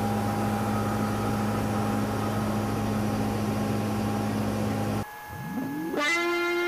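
Steady hum and hiss of a CNC milling machine running while it is not cutting. About five seconds in the hum cuts off, and a guitar note slides up and is held as background music begins.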